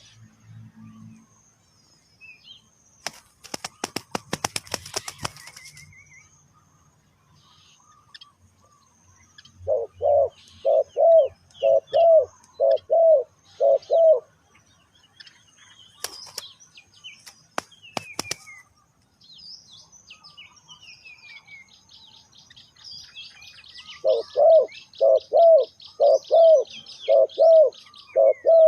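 Spotted doves cooing in two runs of short, repeated coos in quick succession, with small birds chirping faintly high behind. About three seconds in there is a brief burst of wing flapping.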